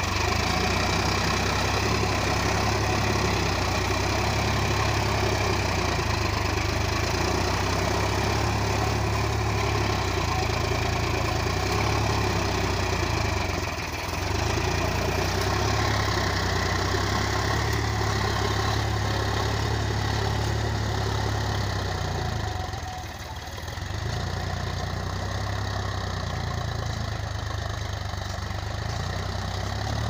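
Sonalika tractor's diesel engine running steadily while it pulls a seed drill through dry soil, briefly quieter about two-thirds of the way in.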